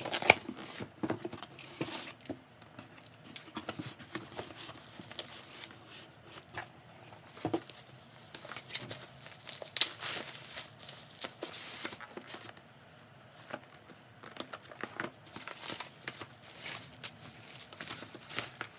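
Packaging being handled and opened: irregular crinkling and tearing, with scattered small clicks and taps.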